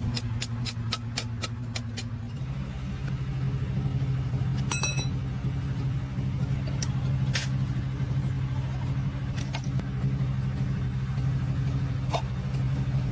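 An engine running steadily with a low drone that shifts slightly about two seconds in, with metal clinks and taps over it. A quick run of ticks comes at the start and a ringing metallic clink about five seconds in.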